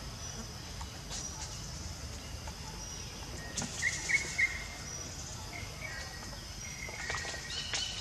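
Outdoor ambience of birds chirping and insects calling, with a few short, louder bird chirps about halfway through.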